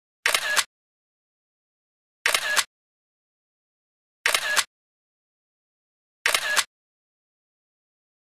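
Camera shutter sound effect, clicking four times, one every two seconds, with dead silence between.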